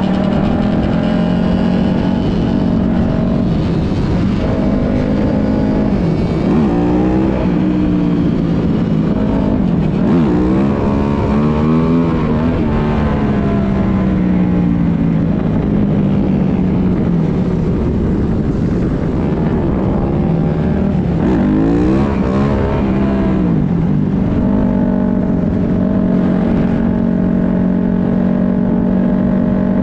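Dirt bike engine cruising steadily, heard close up from the rider's own bike, with wind rumble on the microphone. The engine note glides up and down as the revs rise and fall, about a quarter of the way in, around the middle, and about three quarters through.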